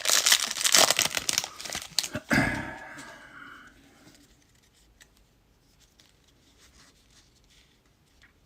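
Foil wrapper of a trading-card pack being torn open and crinkled, a dense crackling noise for the first two and a half seconds. It then dies away to near quiet with a few faint ticks.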